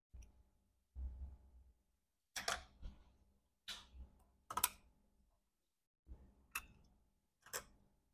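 Scattered clicks and light knocks, about eight in all at uneven intervals, from tools and parts being handled on a repair bench.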